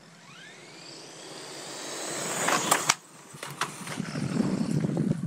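Electric RC trucks speeding across asphalt: a motor whine rising in pitch with tire noise building to a loud pass about two and a half seconds in, then rough tire-on-pavement noise building again.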